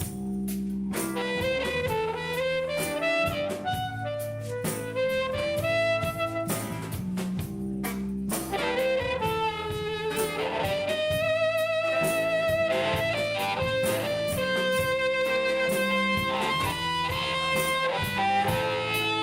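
Live band playing an instrumental passage: a lead melody line of held notes with vibrato over guitar and drums.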